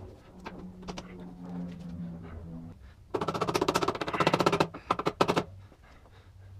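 Socket ratchet worked quickly on the front wheel hardware: a fast run of sharp clicks lasting about a second and a half, starting about three seconds in, then a few slower single clicks.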